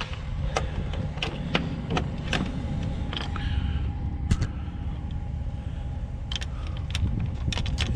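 A car pulling in with its engine running: a steady low rumble and a faint steady hum, with scattered sharp clicks throughout.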